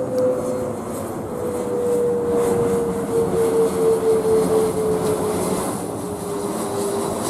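Bombardier CRJ-100ER's rear-mounted GE CF34 turbofans passing overhead on approach: a steady jet rumble and hiss with a whine that slowly drops in pitch as the aircraft goes by.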